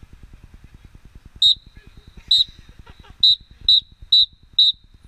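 Whistle blown six times as a count-off: three blasts about a second apart, then three quicker ones, cueing the band to start. A steady, fast, low pulse runs underneath.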